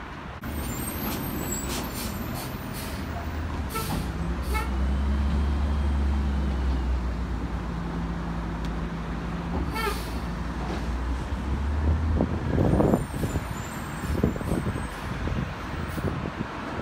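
Labrie garbage truck's diesel engine running as it creeps along the lane, with short air-brake hisses a few times. Near the end comes a burst of rattling and clanking.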